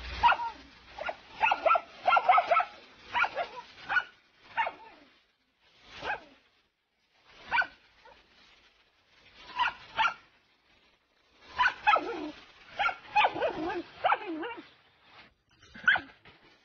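A dog barking at a snake: a quick run of barks at the start, then single barks a second or two apart, then another quick run before a last few single barks.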